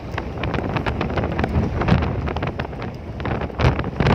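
Wind buffeting the microphone, over irregular splashing of shallow water and short handling clicks and rustles.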